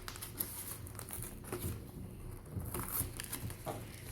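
Plastic packaging being handled, crinkling and rustling in a series of short bursts.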